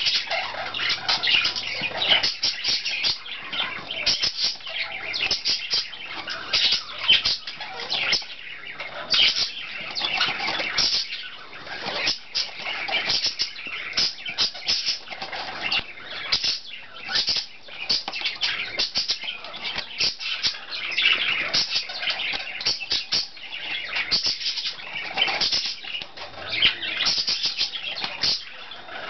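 A pet parakeet scratching and pecking at a styrofoam block: a dense, irregular run of small scratchy clicks and crackles.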